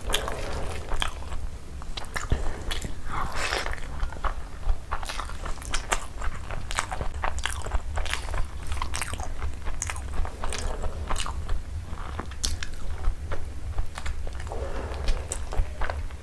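Close-miked chewing of a mouthful of rice and chicken curry eaten by hand: a dense, irregular run of wet smacks and mouth clicks, over a steady low hum.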